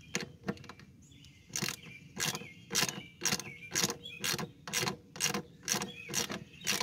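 Socket ratchet clicking in short, regular strokes about two a second as it backs out the 5/16 bolt holding the mower deck's sensor. Birds chirp faintly behind.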